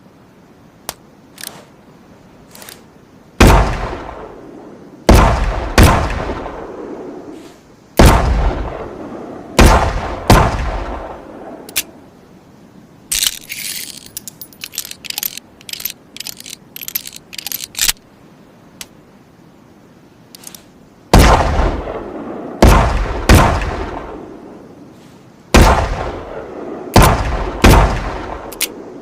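Chiappa Rhino 60DS revolver firing two strings of six shots, each shot loud and sharp with a long echoing tail. Between the two strings comes a run of quick metallic clicks and rattles: the six-round cylinder being emptied and reloaded.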